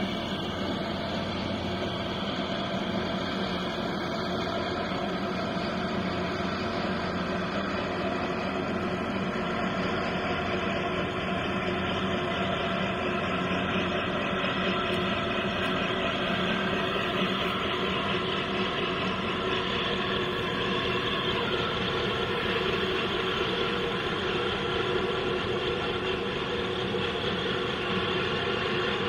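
Marine diesel engines of a harbour tug and a container ship running: a steady drone made of several held tones, with no break.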